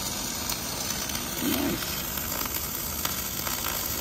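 Wire-fed arc welding on a steel pipe by an automatic torch on a ring track: the arc runs with a steady, even hiss.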